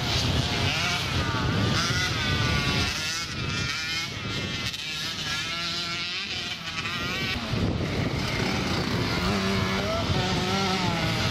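Several small youth motocross bikes racing round the track, their engines revving up and falling back as they accelerate and shift. The sound dips for a few seconds in the middle, then swells again as bikes come closer.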